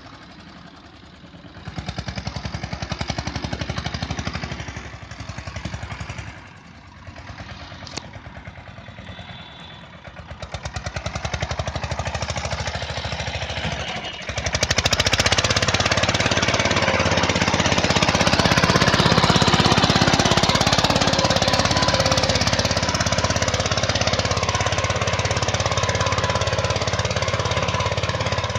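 Yuvraj 215 tractor's single-cylinder diesel engine chugging with a fast even beat while it pulls a plough through the soil. It is quieter and uneven at first and becomes much louder and fuller about halfway through.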